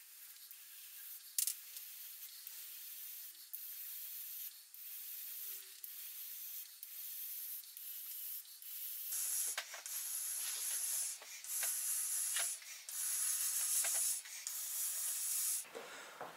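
Breath hissing through a small plastic funnel as a giant soap bubble is blown, in steady pushes. It gets louder about halfway through and breaks off briefly about once a second, with a few faint ticks early on.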